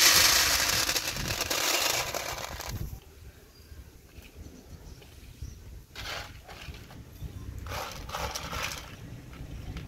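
Dry beans rattling and sliding across a metal tray as it is shaken and the beans are sorted by hand. There is a loud continuous rattle through the first three seconds, then two shorter rattles about six and eight seconds in.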